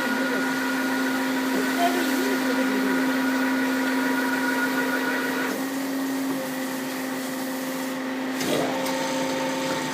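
GZ4232 12-inch metal band saw running with a steady motor hum. The hum changes its tone twice: some higher tones drop out about five and a half seconds in, and a new tone comes in near the end.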